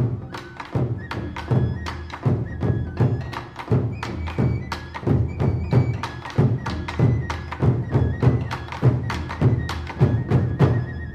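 Music with a steady beat of drum strikes under a high melody.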